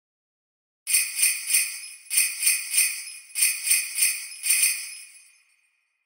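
Sleigh bells shaken in a steady rhythm, about three shakes a second in three groups of four, the last group dying away. They are the timer's alarm, marking that the countdown has run out.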